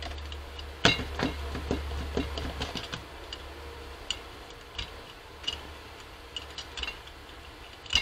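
Clicks and taps as a paint tube and a brayer are handled on a craft table, the loudest a sharp click about a second in, then a flurry of smaller taps. From about four seconds a brayer rolls paint over a gel printing plate, ticking irregularly.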